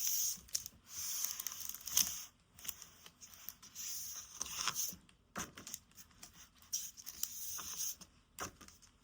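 Paper pages of a picture book being handled and turned: several swishes of about a second each, with scattered clicks and taps between them.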